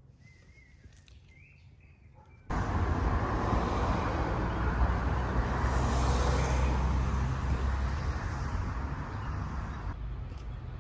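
A few faint bird chirps, then, after an abrupt cut about two and a half seconds in, loud street noise with a deep rumble from passing car traffic, loudest near the middle and easing off toward the end.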